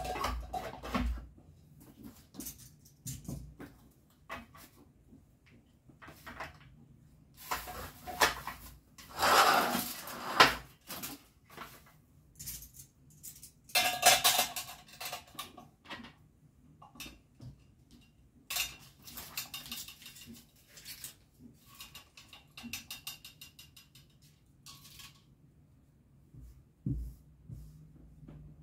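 Dishes and cutlery clinking and clattering as they are handled and put away, in irregular knocks with a few louder clusters and some strikes that ring briefly.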